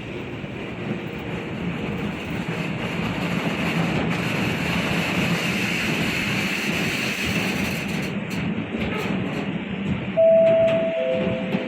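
A train running through the station, a steady rolling rumble that builds over the first few seconds. Near the end a loud two-note tone sounds, a higher note followed by a lower one.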